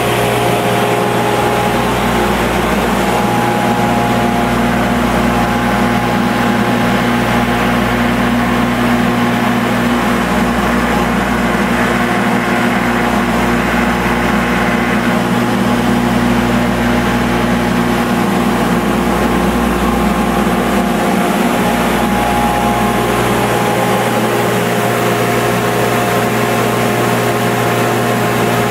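Double drum sander running steadily together with a shop dust collector, a loud, even machine drone with a constant hum. The lowest rumble comes and goes, changing near the end.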